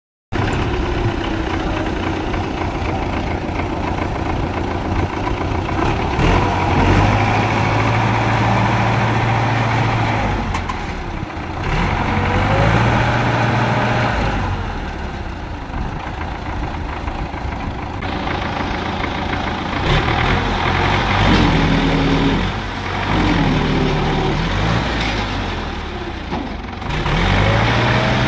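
Tractor engines running under load, revving up and easing off several times as the tractors cross a small stream.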